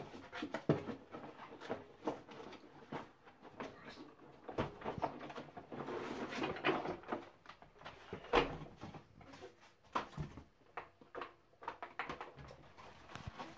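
Cardboard box and packaging rustling and scraping as a plastic toy truck is pulled out and handled, with many small clicks and knocks. The rustling is densest around the middle, and one sharper knock comes a little after it.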